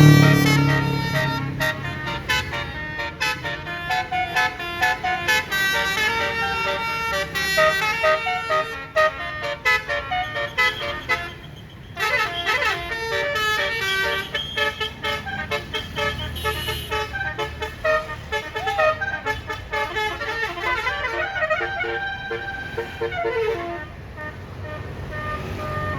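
Bus's Basuri telolet horn playing a quick melody of short, stepping notes, with a brief break about halfway through, over the low rumble of the bus.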